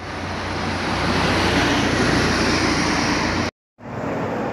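Loud, steady rushing noise of road traffic close by. It cuts off abruptly about three and a half seconds in, and quieter road-side noise follows.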